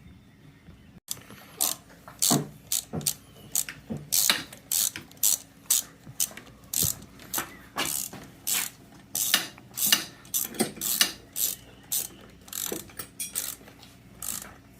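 Hand ratchet wrench clicking in short, irregular strokes, about one to three clicks a second, as the mounting nuts of a replacement carburetor and intake elbow are run onto a small ATV engine.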